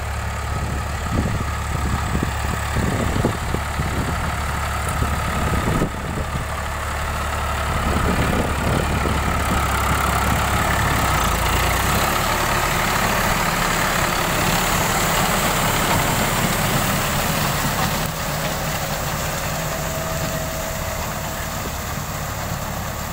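Diesel tractor engine running steadily under load as it pulls a rotary tiller through a flooded paddy field. The sound shifts abruptly about every six seconds.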